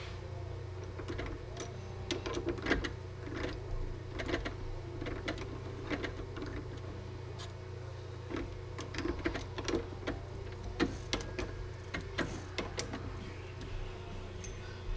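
Irregular light metallic clicks and taps of a small tool being handled and fitted into a milling machine's drill chuck, over a steady low hum.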